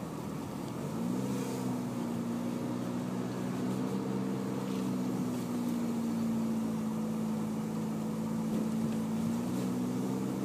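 Car engine running under road noise, heard from inside the car while driving. The engine note climbs during the first second, holds steady, then dips and climbs again near the end.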